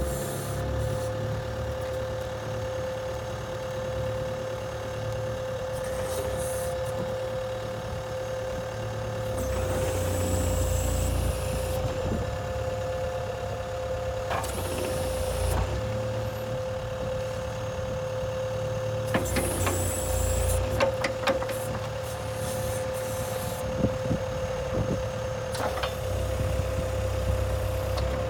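Engine of the machine carrying the backhoe attachment running steadily, with a constant high whine over the rumble. A few sharp clanks and knocks come in the second half.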